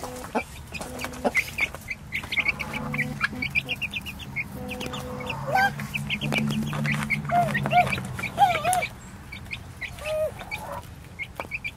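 A flock of young chickens calling while they feed: a steady run of short, high peeps with a few lower, rising-and-falling clucking calls mixed in.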